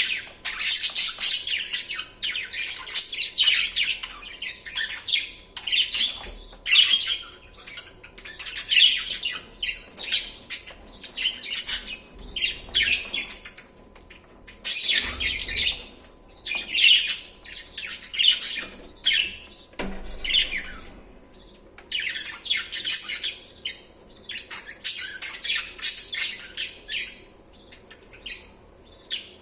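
Budgerigars calling in busy bouts of rapid, high-pitched chirps, with a few brief lulls.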